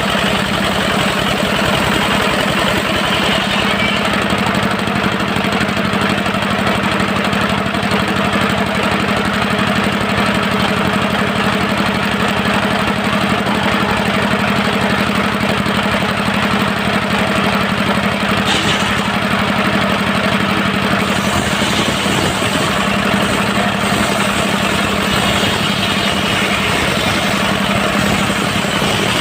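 Dongfeng diesel engine of a portable circular-saw mill running steadily at an even speed with a rapid chugging pulse.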